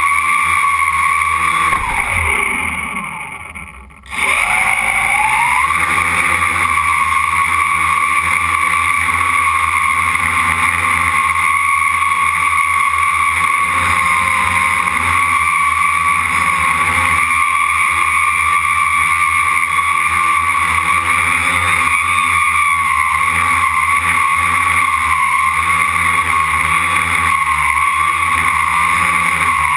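Quadcopter motors and propellers whining steadily. About two seconds in they wind down, falling in pitch and fading. Near four seconds in they spin back up quickly to a steady whine.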